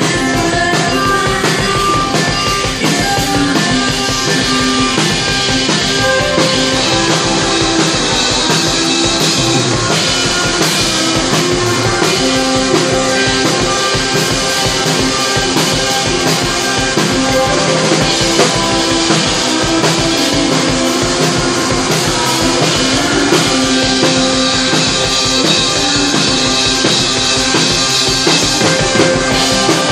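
Live rock music from an electric guitar and a drum kit: a steady drum beat under long held notes.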